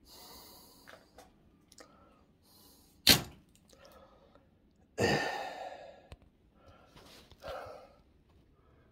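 Knocks and clatter of objects being handled in a workshop: one sharp thunk about three seconds in, then a scraping clatter about two seconds later that fades over a second, with a few fainter knocks between.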